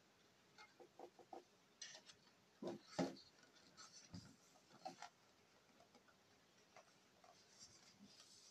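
Cardboard packaging being handled and opened: a scatter of light taps, scuffs and card rustles, the loudest about three seconds in, then a faint rustle near the end.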